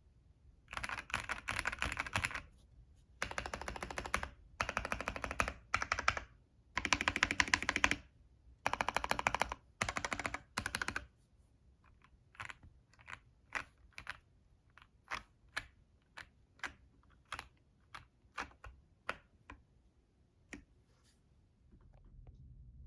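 Modded Womier V-K66 gasket-mount keyboard with prelubed red linear switches, a PC plate, a tape mod, and shelf liner and Polyfil dampening, being typed on. The first ten seconds or so are fast typing in several bursts. After that come single keystrokes, roughly one every 0.7 s, until near the end.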